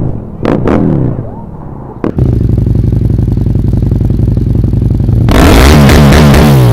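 Husqvarna Nuda 900R's 900 cc parallel-twin engine, blipped in quick sharp revs, then running steadily. It is revved hard and loudest in the last second and a half.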